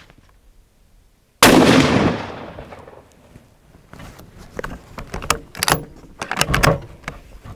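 A single shot from a Steyr Scout bolt-action rifle in .223 Remington: a sudden crack about a second and a half in, with an echoing tail that dies away over about a second and a half. A few seconds later comes a run of sharp metallic clicks as the bolt is worked to eject the case and chamber the next round.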